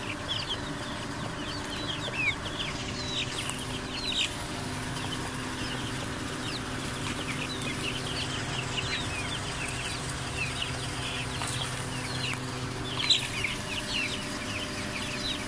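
A crowded flock of young chicks, Lohmann Browns among them, peeping without pause: many short, high, falling cheeps overlapping, over a steady low hum.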